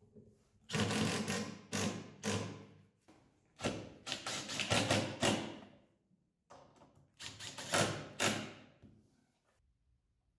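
Cordless drill-driver driving screws into a hardwood cabinet frame, in three runs of a couple of seconds each, every run made of several short trigger pulses.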